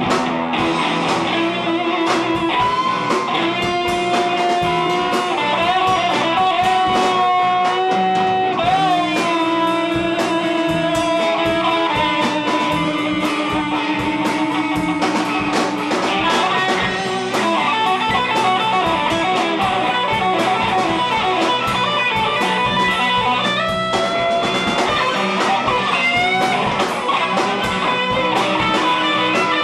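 Rock band playing an instrumental section over a steady beat, led by an electric guitar with long sustained notes that bend up and waver in pitch.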